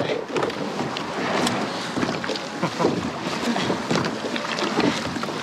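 Wooden oars being rowed in a small boat: splashing water and irregular knocks of the oars working in their locks. Wind buffets the microphone.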